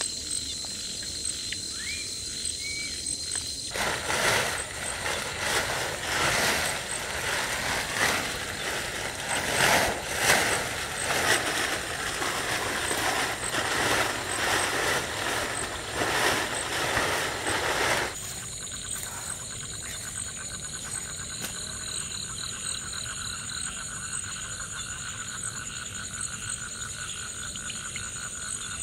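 A large plastic tarp crackling and flapping loudly and irregularly as it is shaken and thrown over a pole shelter frame, from about 4 s in until about 18 s in. Before and after it, night insects chirp steadily.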